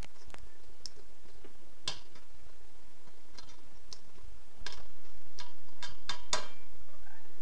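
Utensil scraping and tapping against a stainless steel stand-mixer bowl while working sticky bread dough, a string of irregular light clicks and scrapes.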